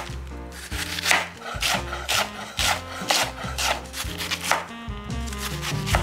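Large kitchen knife shredding cabbage thinly on a wooden cutting board, in an even rhythm of about two cuts a second with a short break about three-quarters of the way through.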